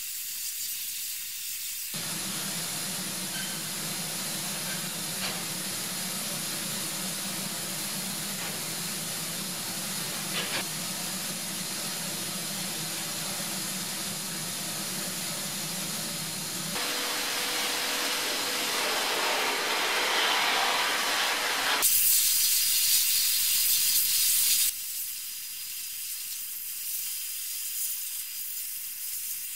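Media-blasting nozzle hissing steadily as it blasts medium-grit glass media at a bare steel car body shell. The hiss changes tone and strength abruptly several times and is loudest a little past two-thirds of the way through.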